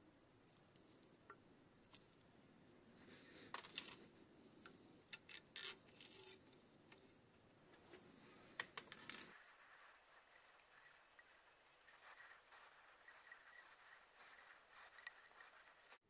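Faint light clicks and scraping of a metal pick working a small coiled garter spring off a fork seal. After about nine seconds this gives way to fainter rubbing and ticking as fork parts are handled.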